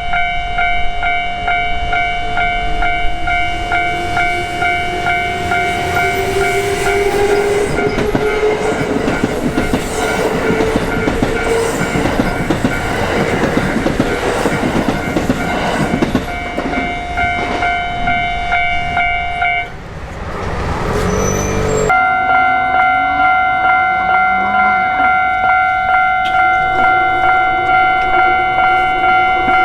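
Japanese railroad-crossing warning bell ringing in a steady, even ding-ding of about two strokes a second. A Kintetsu Osaka Line train passes over the crossing, and its rumble and wheel clatter are loudest in the middle, along with a motor whine rising in pitch. The bell sound breaks off briefly about twenty seconds in, then rings on.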